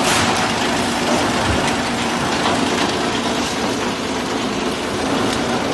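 Plastic egg-box forming and packing machine line running: a steady mechanical din with a low hum and occasional faint clicks.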